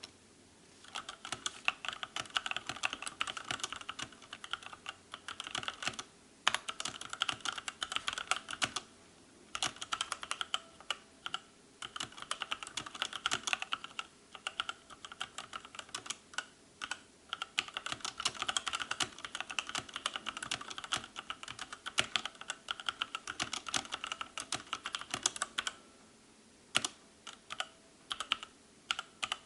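Fast typing on a Motospeed CK62 60% mechanical keyboard, with key clicks in continuous runs broken by a few short pauses. The sound is very quiet for a budget mechanical keyboard.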